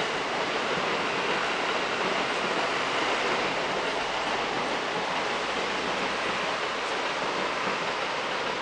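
A steady, even rushing noise of town traffic, with no distinct events standing out.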